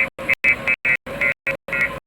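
Music track chopped into short stuttering fragments, about four or five a second, each cut off into dead silence.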